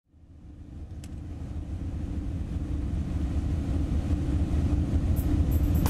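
Passenger ship's engine droning steadily, with an even rush of water and wind over it, fading in over the first few seconds. A few sharp clicks come near the end.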